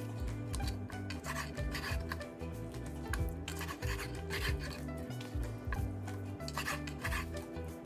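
A chef's knife slicing through raw chicken on a wooden cutting board, with repeated strokes and soft knocks of the blade against the wood. Faint background music with a steady bass line runs underneath.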